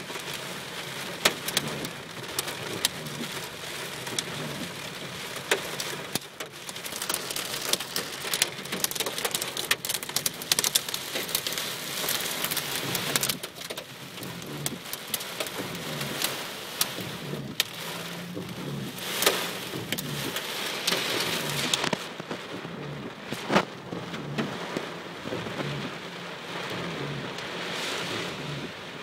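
Heavy rain in a thunderstorm: a steady hiss of rain with many sharp drop hits on a surface. The high part of the hiss thins out about two-thirds of the way through.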